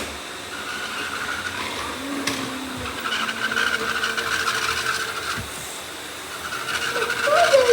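Several robot vacuums running together: a steady whir of motors and brushes with a few steady tones in it, growing louder near the end.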